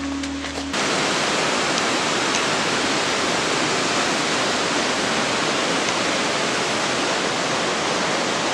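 A music bed cuts off under a second in, giving way to a steady, unbroken rush of water such as a mountain waterfall or torrent.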